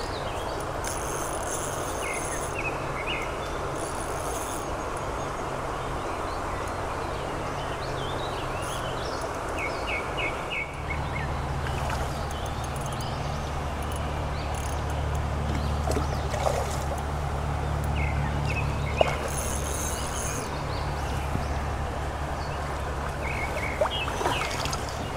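Stream water running steadily over a shallow riffle, with birds chirping briefly now and then. A low rumble joins in about halfway through.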